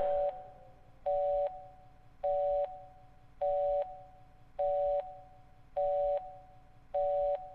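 Telephone line tone: a short beep of two steady pitches together, repeated about once a second, seven times, after the music cuts off.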